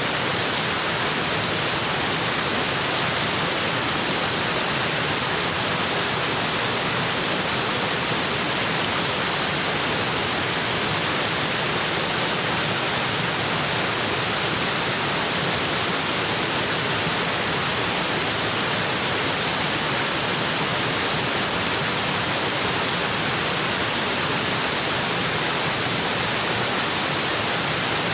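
Waterfall: water pouring over rocks in a steady, unbroken rush.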